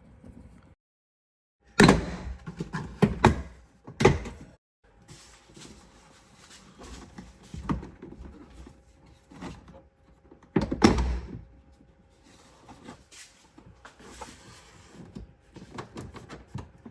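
Plastic tailgate trim being pried and pulled loose: scattered sharp knocks and clip pops with light rattling of plastic between them, the loudest knock about eleven seconds in.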